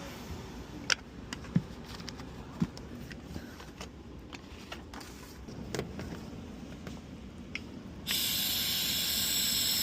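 Scattered light clicks and knocks of parts and tools being handled, with two duller thumps. About eight seconds in, a loud steady hiss starts abruptly and lasts just under two seconds.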